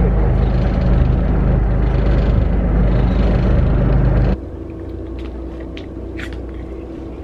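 Boat engine running steadily with a low hum. It cuts off abruptly about four seconds in, leaving a quieter background with a faint steady tone and a few light clicks.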